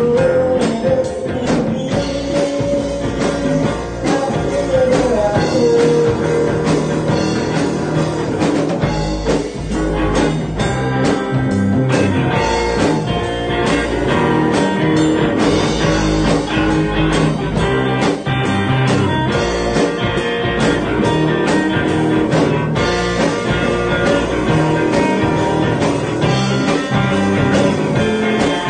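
Live rock band playing an instrumental passage through a PA, with electric guitar over a drum kit.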